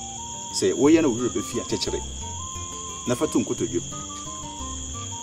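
Crickets trilling steadily as night ambience, over two short spoken phrases and soft, slow background music notes.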